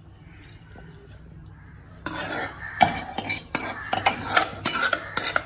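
A spoon clinking and scraping against a mixer-grinder jar, a quick run of knocks and clatter starting about two seconds in.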